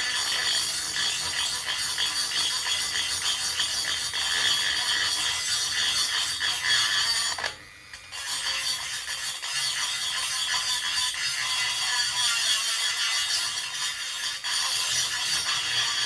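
Steady scraping and rubbing of abrasive work on a mini bike's metal frame, roughing it up before primer, with a short break about halfway through.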